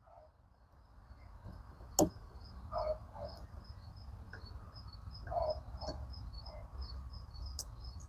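Cricket chirping in a steady rhythm of about three high chirps a second, with a sharp click about two seconds in and a few faint handling noises.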